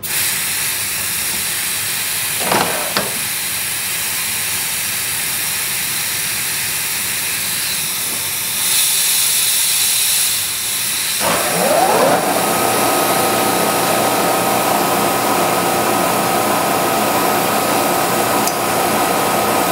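Mist coolant sprayer hissing steadily on compressed air. About eleven seconds in, the milling machine's spindle starts up, its whine rising and then holding steady over the hiss.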